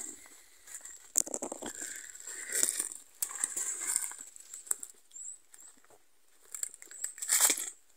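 Footsteps on a dry spruce forest floor, crunching needles, cones and twigs, with rustling as the walker moves through the undergrowth. The steps come irregularly, loudest about a second in and near the end.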